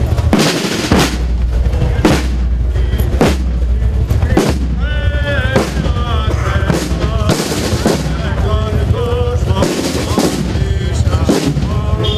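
Marching band's snare and bass drums beating a steady march rhythm, with wavering pitched tones over it from about five seconds in.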